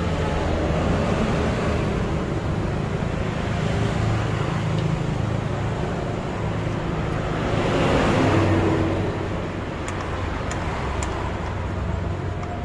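Steady road traffic rumble, with one vehicle passing louder about eight seconds in and fading away. A few faint clicks come near the end.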